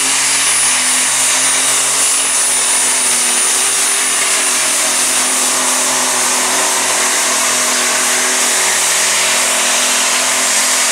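Modified pulling tractor running at full throttle while it drags the weight sled down the track: a loud, steady, dense engine noise. A high steady whine rides on top and fades out about halfway through.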